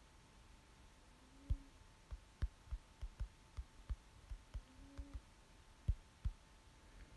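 Fingertips tapping on a smartphone's glass touchscreen while typing on the on-screen keyboard: dull, irregularly spaced taps, about fifteen, starting about a second and a half in, over a faint steady hum.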